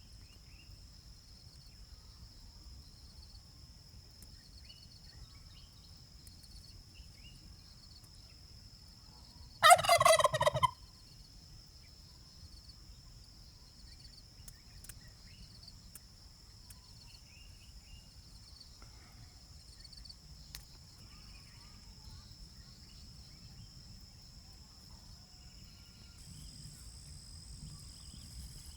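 A domestic turkey gobbling once, a rapid rattling call about a second long, roughly a third of the way in.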